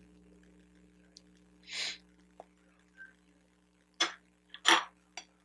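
Close-miked eating noises from a bagel sandwich: a few short, wet mouth and squishing sounds, the loudest pair about four seconds in, over a faint steady hum.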